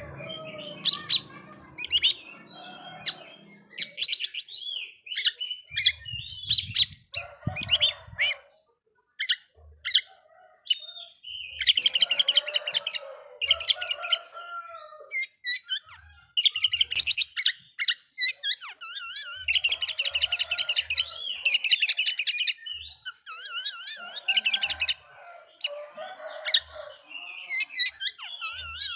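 Oriental magpie-robin (kacer) singing: a long run of varied phrases, with clear whistles, fast trills and rapid wavering rattles broken by short pauses.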